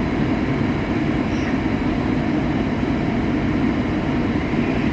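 Heil gas furnace running with its burners firing and its inducer and blower going: a steady, even low rumble.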